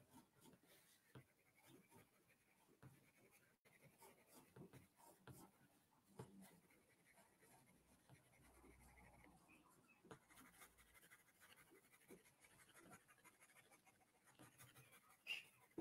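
Faint scratching of a pencil on sketchbook paper in short, repeated shading strokes, with a brief louder sound near the end.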